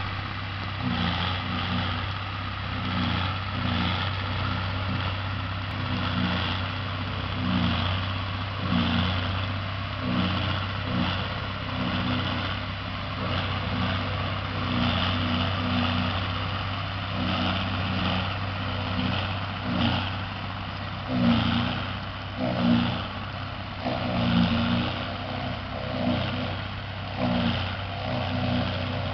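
Tractor engines and a forage harvester running steadily while picking up and chopping rows of cut grass for silage, a continuous low drone that swells and dips slightly.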